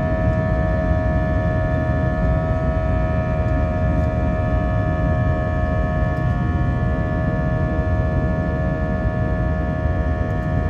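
Airliner's turbofan engines heard from inside the cabin during the climb after takeoff: a steady low rumble with several steady whining tones over it.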